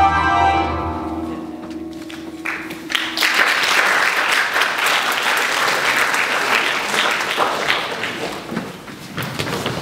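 Music for a stage dance ends with held notes fading out, then audience applause starts about three seconds in and dies down near the end.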